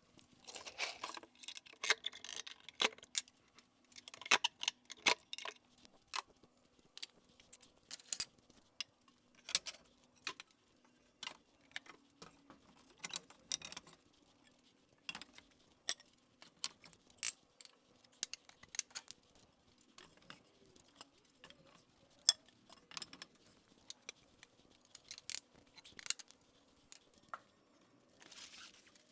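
Irregular knocks and clatters of wooden boards and offcuts being picked up, moved and stacked.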